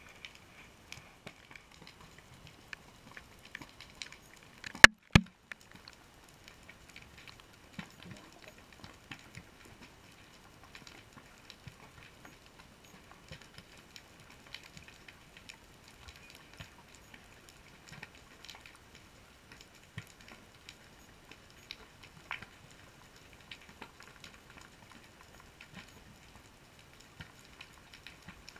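Underwater crackling of a rocky reef: a steady scatter of faint clicks and pops, heard through a GoPro's waterproof housing. Two sharp knocks about five seconds in are the loudest sounds.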